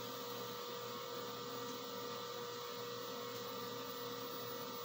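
Home-built 3D printer standing idle with its nozzle hot, humming steadily: an even fan-like noise with a couple of fixed whining tones.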